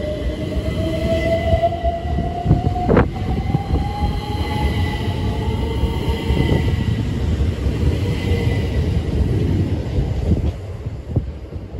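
GWR Class 387 Electrostar electric multiple unit pulling away, its traction motor whine climbing steadily in pitch as it accelerates over the rumble of wheels on rail. There is one sharp clack about three seconds in, and the sound eases off near the end as the train leaves.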